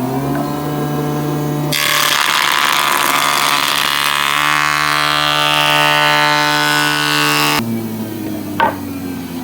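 Electric hand planer cutting across a wooden cutting board: the motor hums, then for about six seconds the blades shave the board with a loud rasp, the pitch deepening under load partway through. Near the end the planer comes off the wood and the motor runs on alone, with one sharp click.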